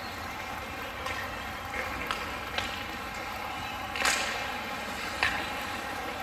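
Ice hockey play in an arena: several sharp cracks of sticks striking the puck or the puck hitting the boards, the loudest about four seconds in, over the rink's steady background noise.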